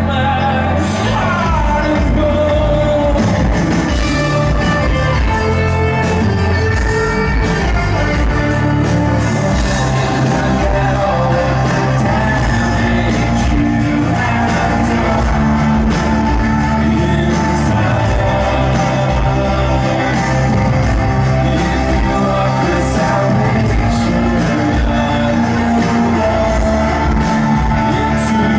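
Synth-pop band playing live, with a male lead vocal sung into a microphone over the music, loud and unbroken.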